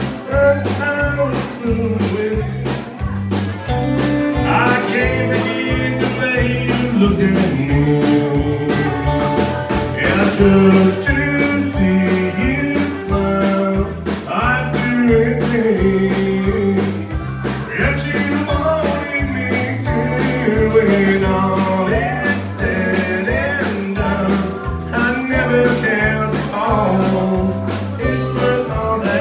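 Live country band playing an instrumental passage: fiddle over acoustic guitar, bass and drums, with a steady beat.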